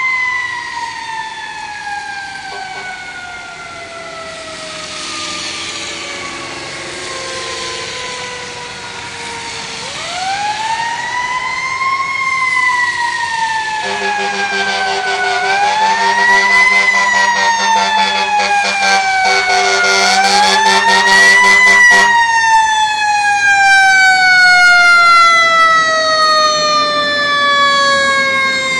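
Fire engine siren with a slow wail, rising over a couple of seconds and then falling slowly, three times over. It grows louder as the truck approaches. For several seconds in the middle a steady low tone sounds along with it.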